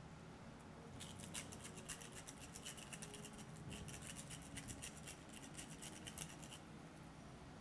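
Pepper mill grinding peppercorns over the pot: a fast run of crisp, crunching clicks that starts about a second in and stops near the end.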